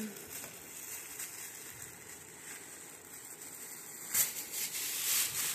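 Metallic foil gift wrap crinkling and rustling as it is handled and pulled open, soft at first, then louder crackly crinkling from about four seconds in.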